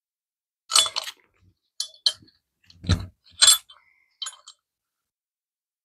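Metal clinks and knocks from hammering a punch against a bent valve in a small-engine cylinder head: about eight irregular strikes over some four seconds, with one heavier, deeper knock about three seconds in.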